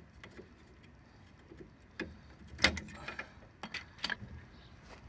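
Sharp metallic clicks and scrapes of a hand tool working the old wheel-bearing shim loose from the hub bore. A handful of clicks start about two seconds in, the loudest near the middle.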